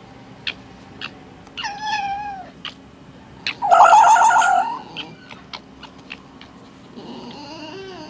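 Red fox calling: a drawn-out cry about two seconds in that drops in pitch at its end, then a loud scream just over a second long near the middle, and a fainter cry near the end. Short sharp clicks come between the calls.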